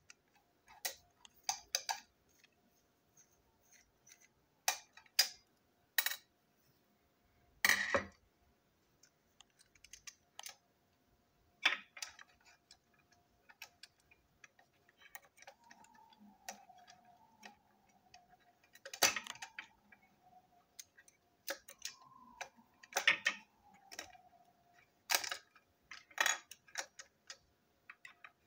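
Small plastic toy train wagon parts clicking and tapping against each other and the table as the wagon is taken apart by hand: irregular sharp clicks, with a few louder knocks.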